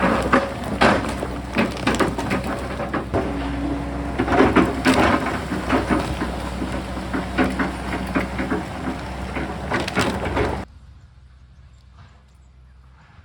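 Excavator working in rock: its engine runs steadily under a dense clatter of knocks and scraping as the bucket breaks and shifts rock. The sound cuts off abruptly about ten seconds in, leaving only a faint background.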